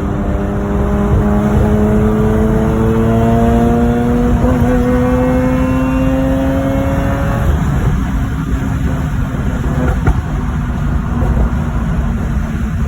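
Mazda RX-8's rotary engine accelerating, its pitch climbing steadily for about seven seconds with a brief stumble about four and a half seconds in, then falling away to a lower steady note. The hiccup is of the kind the owner reports at high revs and takes for a misfire.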